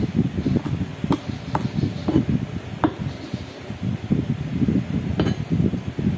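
Kitchen knife rapidly chopping leafy green herbs on a cutting board: a quick, uneven run of dull taps, with a few sharper clicks among them.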